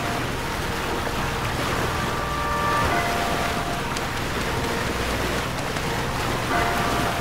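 Steady rush of sea water and wind from a moving boat, with wind buffeting the microphone. A soft chord of held musical tones comes in twice over it, about two seconds in and again near the end.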